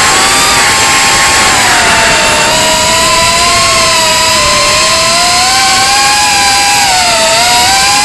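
Brushless motors and propellers of a small FPV quadcopter whining, several close tones that sag and rise with throttle: a dip about seven seconds in, then climbing at the end. The motor sound is one the owner says sounds strange.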